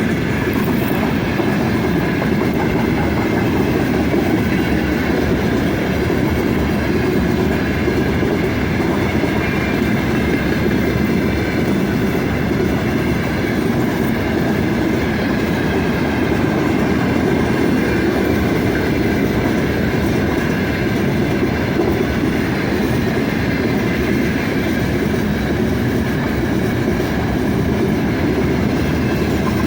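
Wagons of a long freight train rolling past, a steady loud rumble of steel wheels on the rails.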